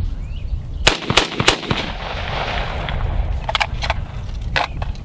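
A 5.56 mm Beretta ARX-100 rifle fires a quick run of sharp shots about a second in, followed by a ringing echo. Then come a few lighter metallic clicks of the rifle being handled as the emptied magazine is taken out.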